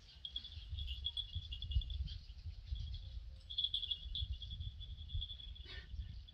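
Insects chirping steadily in a high, pulsing band, over an uneven low rumble. A brief short sound comes near the end.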